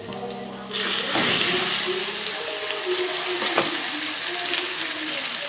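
Pieces of boiled chicken going into a pan of hot oil, setting off a sudden, loud, steady sizzle under a second in.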